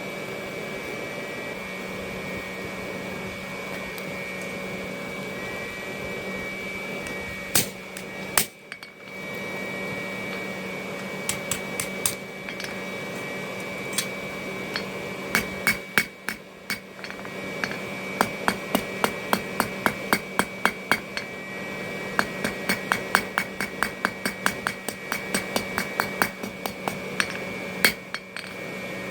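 Hand hammer striking the top fuller, a chamfered railroad spike, driving a V groove into hot mild steel flat bar over a matching bottom fuller. It starts with a few scattered blows, then runs into quick, even blows at about two to three a second for the last ten seconds or so. A steady mechanical hum runs underneath.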